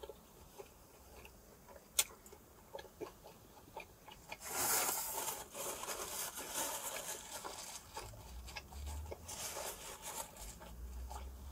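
Close-up chewing and wet mouth sounds of a person eating a birria taco, with rustling of a paper napkin. The first few seconds are nearly quiet apart from one click about two seconds in, then steady crackly eating and handling noise.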